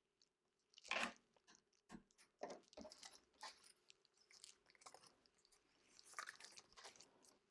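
Scissors snipping and handling small pieces of paper: a quiet run of short, crisp snips and rustles, the loudest about a second in.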